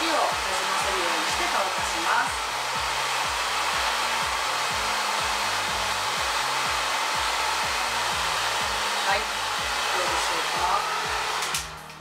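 Hand-held hair dryer blowing steadily while drying hair, switched off near the end.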